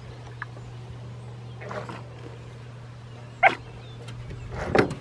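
Small dog barking three times in short, sharp barks; the loudest comes about halfway through. A steady low hum runs underneath.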